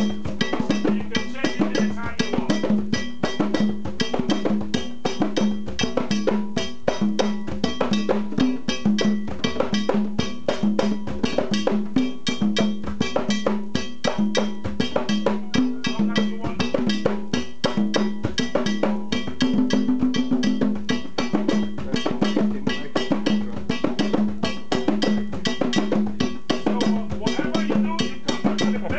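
Ensemble of hand drums, djembes and tall pegged barrel drums, struck with bare hands in a fast, continuous interlocking rhythm, with a metal bell ringing through it.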